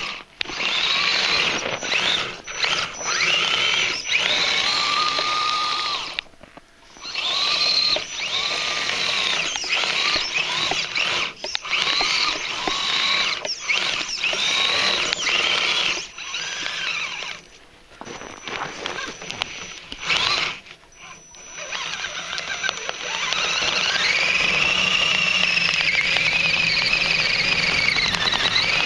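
RC crawler on RC4WD EVO Predator tracks, its electric motor and gearbox whining in short throttle bursts, the pitch rising and falling with each, with a few brief pauses. In the last few seconds it makes one longer run as the tracks dig into loose dirt.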